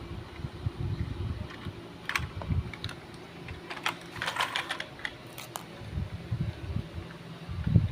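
Irregular small clicks and taps over soft low thuds, like objects being handled; a quick run of clicks comes about halfway through.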